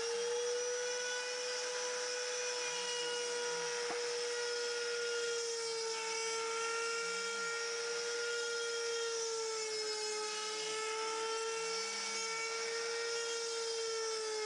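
Trim router of a Sienci Mill One desktop CNC spinning a two-flute end mill at full speed: a steady high whine whose pitch sags slightly now and then as the bit cuts into aluminum bar stock. The cut runs at a feed rate the owner judges too high for the machine.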